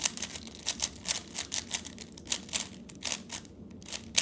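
3x3 Rubik's cube being turned quickly by hand: a rapid, irregular run of plastic clicks and clacks, with one louder knock near the end.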